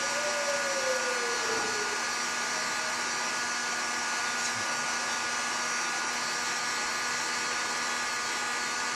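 Steady whirring hum from a small machine running while the circular bottling machine fills a glass flask with liquid. A short falling tone is heard in the first two seconds.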